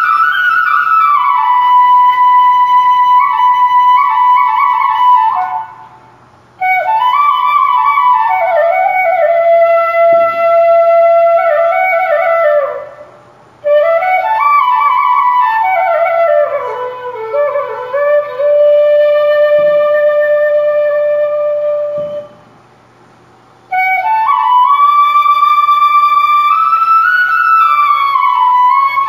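Solo flute playing a slow melody in long phrases with short breaks between them.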